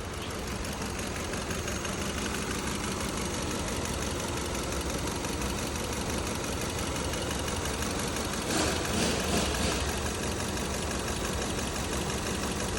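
Kia Cerato four-cylinder engine idling roughly with a misfire on cylinder 4, which the mechanic traces to a fuel injector that opens but does not close. A brief louder noise comes about nine seconds in.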